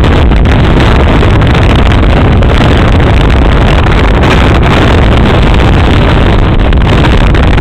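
Motorboat running steadily at towing speed, with wind buffeting the microphone.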